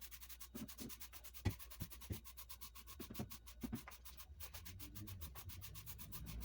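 Quiet, rapid rubbing strokes of a sponge or cloth scrubbing a surface clean, about nine strokes a second, with a few soft knocks in between.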